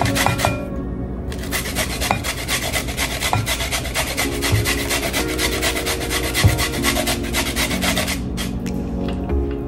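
Raw red malanga being grated by hand on a grater: quick, even rasping strokes that pause briefly about a second in and stop near the end.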